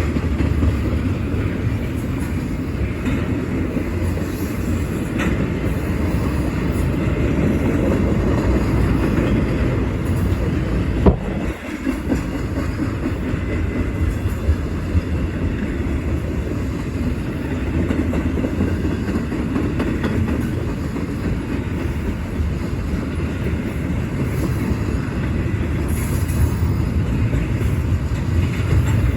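Long train running and slowing down, a steady noise heaviest in the low end, with one sharp knock about eleven seconds in.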